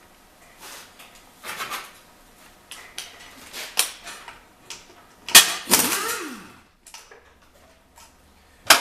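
Metal tools and gearbox parts clinking and knocking as a manual gearbox is handled on the bench, with a loud metallic clatter about five seconds in.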